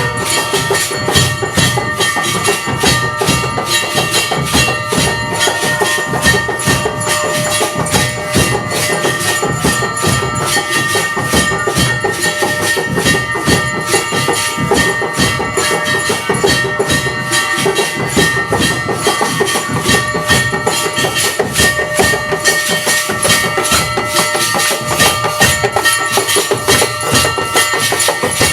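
Aarti percussion: drums and metal bells beaten in a fast, even rhythm, with a steady metallic ringing over it.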